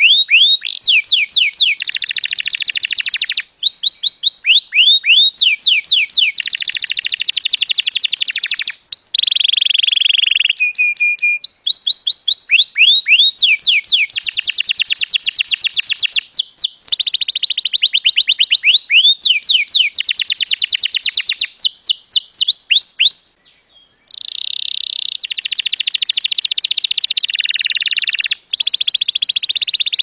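Domestic canary singing a long, high-pitched song of rapid trills and fast repeated sweeping notes, changing from one trill to the next, with a brief break about three quarters of the way through.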